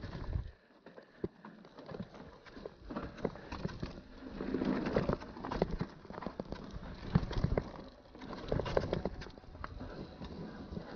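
Mountain bike rolling over rocky trail: irregular knocks, clicks and rattles from the tyres and frame striking rock.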